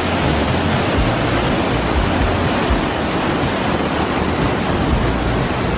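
Large waterfall heard close up: a loud, steady rush of falling water with a low rumble underneath.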